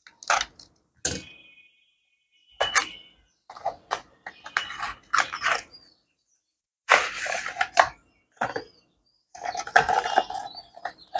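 A snap-off utility knife slitting plastic shrink wrap, then a cardboard box being opened and handled. There are two sharp clicks near the start, then scattered crinkling and rustling in short bursts.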